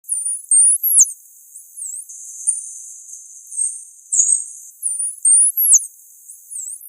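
Dolphin whistles: a run of thin, very high-pitched whistles that sweep up and down in pitch, several U-shaped or rising then sharply falling, repeated over and over.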